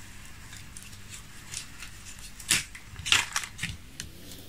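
Tissue paper being folded and pressed by fingers around a small wooden model aeroplane: faint crinkling and rustling, with a few louder crackles about two and a half and three seconds in.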